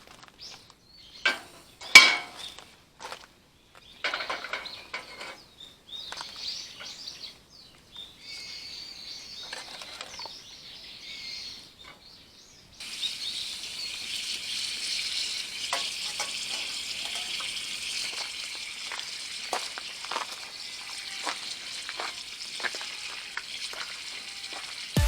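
Gasless flux-core wire welder arc sizzling on steel: scattered short bursts and clicks, then about halfway through a steady crackling sizzle starts abruptly and holds, as a continuous bead is run.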